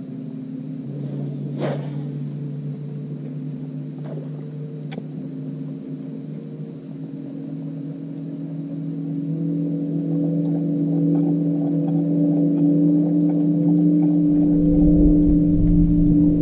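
An engine droning steadily at one pitch and growing louder over the second half, with a deep rumble coming in near the end. A single sharp click about two seconds in.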